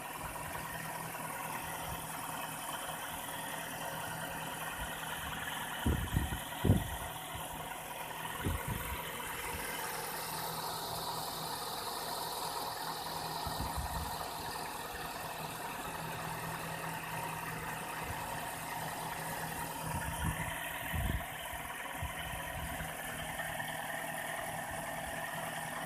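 Nissan X-Trail T31's 2.5-litre four-cylinder petrol engine idling steadily and evenly, without the cold-start knock. There are a few dull low thumps about six and twenty-one seconds in.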